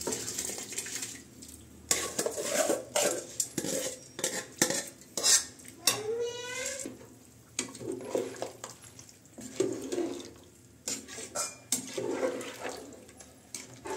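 Metal ladle and aluminium bowl clinking and scraping against an aluminium pressure cooker as rice is tipped in and stirred through the biryani masala, with a short rising squeak about six seconds in.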